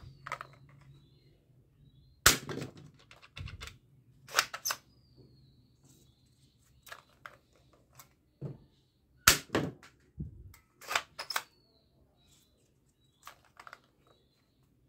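Plastic foam-dart toy pistol being loaded and fired: a scattered series of sharp plastic clicks and clacks at irregular intervals.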